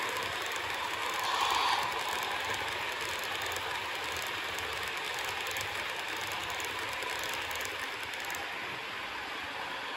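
H0-scale model passenger coaches rolling past on Roco Line track, a steady rolling rattle with rapid fine clicks from the wheels over rail joints and turnouts, with a brief louder sound about a second and a half in. The clicking thins out about eight seconds in as the train moves away.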